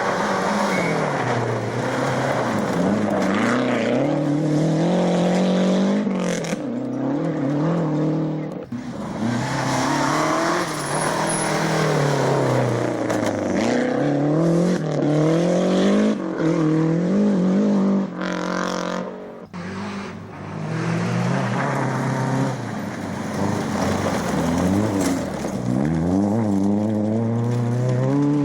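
Rally car engines revving hard, pitch climbing and dropping again and again through gear changes, one car after another with abrupt breaks between them.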